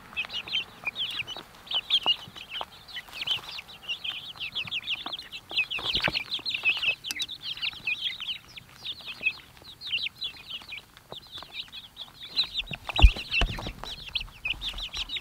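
A flock of young Freedom Ranger meat chicks peeping constantly and rapidly as they feed, with scattered taps of beaks pecking in the PVC pipe trough and one sharp knock about 13 seconds in.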